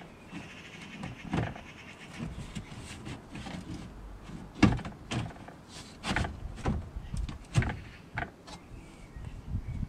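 Plastic engine undertray being pushed up into place by hand: a run of sharp knocks and clicks as the panel bumps and seats against the car's underbody, the loudest about halfway through, with a scraping, creaking sound of the plastic in the first couple of seconds.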